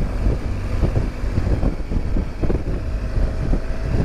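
Wind rushing over the microphone of a BMW R1200GS motorcycle under way, with the bike's boxer-twin engine running under a steady low rumble.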